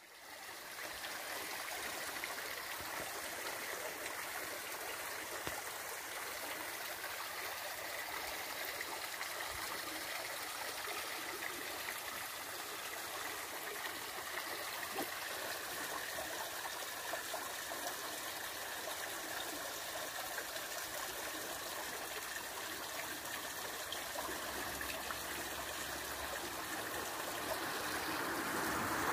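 A small muddy stream running steadily, a continuous rush of flowing water.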